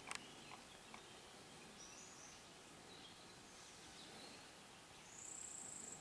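Quiet woodland ambience with faint, thin, high bird calls. A sharp click comes right at the start, and a high held note lasts about a second near the end.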